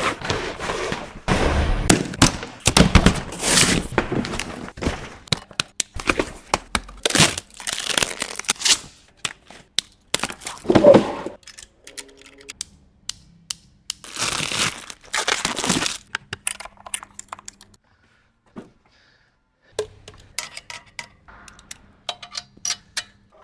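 Packaging being torn open and handled: crinkling, tearing and sharp cracks and knocks come in irregular bursts, then stop briefly about three-quarters of the way through before a few lighter clicks.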